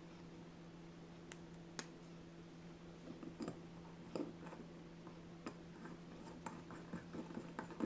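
Faint clicks and small scrapes of the fuel-inlet nut and fibre washer being threaded by hand into the Villiers S10 carburettor body, a few light ticks every second or so, over a steady low hum.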